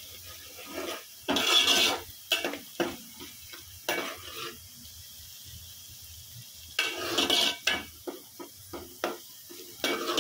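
A spoon stirring ginger-garlic paste into fried onions in a metal pot: clinks and scrapes against the pot, with two longer, louder scrapes about a second and a half in and again near seven seconds, over the onions frying in oil.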